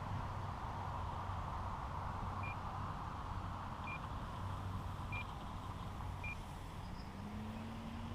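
Steady drone of an RC plane's electric motor and propeller in flight, with four short high beeps about a second apart in the middle and a low tone rising near the end.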